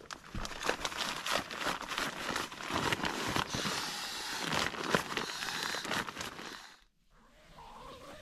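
Nylon fabric crinkling and rustling with many small crackles as a Big Agnes pump sack and an air sleeping pad are handled and the sack is fitted to the pad's valve. The sound stops abruptly about seven seconds in and falls to a faint background.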